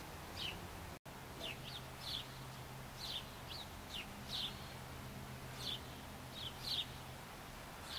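Small birds chirping: short, high chirps that slide downward, one or two a second, over faint outdoor background noise.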